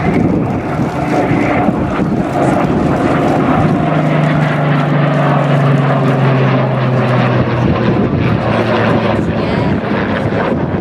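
A Supermarine Spitfire's piston engine and a Eurofighter Typhoon's jet engines flying past together in formation: a loud, steady aircraft drone whose engine tones sink slightly in pitch midway through as the pair go by.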